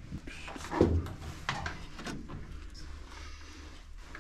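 Scattered knocks, clicks and light scraping of objects being moved or stepped on, with a louder dull thump just under a second in.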